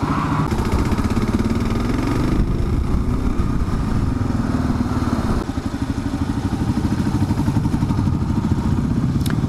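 Kawasaki KLR 650's single-cylinder engine running at road speed, with wind noise over it. The engine gets a little quieter about five and a half seconds in.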